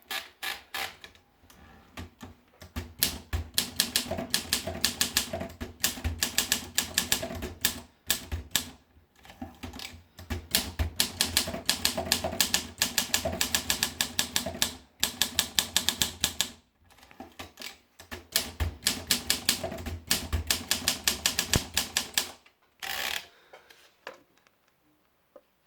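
Olympia SM3 manual portable typewriter being typed on: fast runs of key strikes, several a second, broken by short pauses. Near the end comes a brief rasping sound, and then the typing stops.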